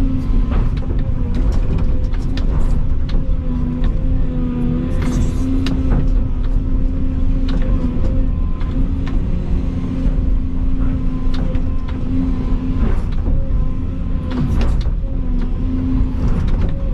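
Volvo EC220 excavator's diesel engine running with a hum that comes and goes as the hydraulics work, broken by repeated sharp knocks and cracks as an old fence is torn down.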